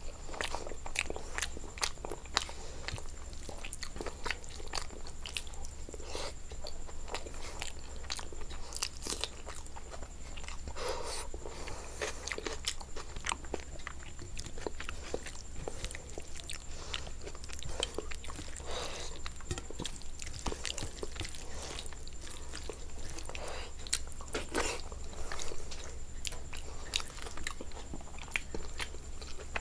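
Close-up chewing and biting of food, with many irregular crunches and mouth clicks, over a steady low hum.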